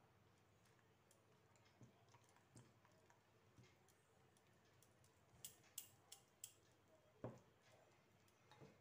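Near silence, broken by a few faint clicks of a spoon against a glass mixing bowl as milk is stirred into flour and cocoa powder, with a soft knock soon after.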